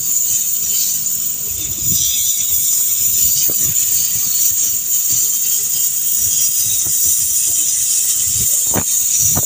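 Oxygen-and-gas cutting torch cutting through a steel pile: a steady high hiss, with a few scattered knocks and one sharper knock near the end.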